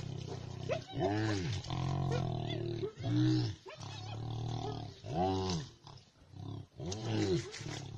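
Hyenas attacking a hippopotamus: four short moaning calls that rise and fall in pitch, with lower growling between them.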